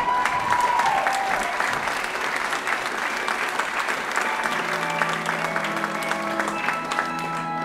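Audience applauding steadily with dense clapping. A held high note ends in the first second or so, and soft sustained backing-music notes come in about halfway under the applause.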